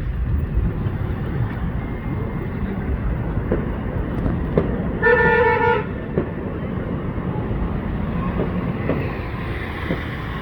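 A horn toots once, briefly, about five seconds in, over a steady low rumble of outdoor city noise.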